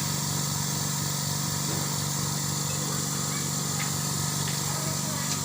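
Izumi Max OM 0724 compressor running steadily with an even hum and a fast regular pulse.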